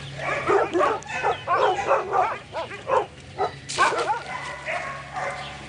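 Dogs barking and yelping in rapid, overlapping calls, thinning out after about four seconds, over a steady low hum.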